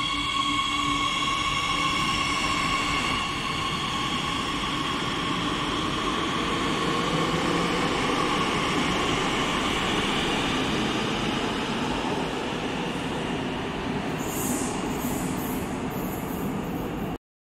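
Madrid Metro Series 8000 electric train pulling out of an underground station and speeding up into the tunnel: a high electric whine from the drive over rumbling wheels on the rails, easing off a little as it goes. A few short, high wheel squeals come near the end, then the sound cuts off suddenly.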